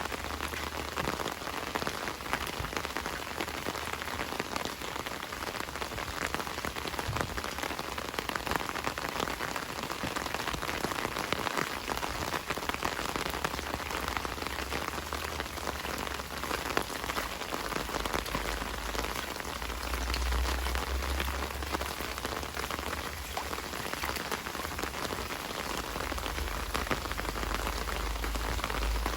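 Heavy rain falling steadily, a dense patter of drops on surfaces, with a low rumble that swells and fades a few times in the second half.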